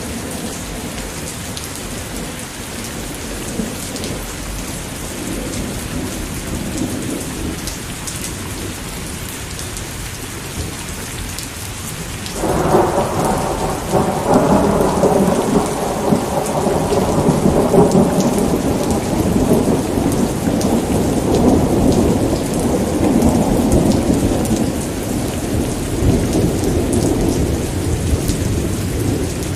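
Steady rain falling, with a long roll of thunder that breaks in suddenly about halfway through and rumbles on for over ten seconds before slowly fading back under the rain.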